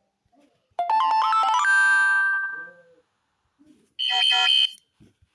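Two phone notification tones played back one after another. The first is a quick rising run of bell-like electronic notes that rings out for about two seconds. About a second later comes a short, brighter chime.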